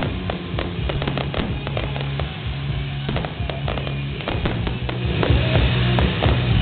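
Fireworks display: shells bursting in a rapid run of sharp bangs, several a second, that grow louder and denser about five seconds in. Music plays underneath.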